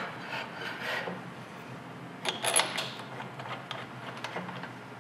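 Heinrich fixture locks being slid along their steel support rods and fitted by hand: short metal scrapes and rubbing, the loudest about two and a half seconds in, followed by a few light clicks.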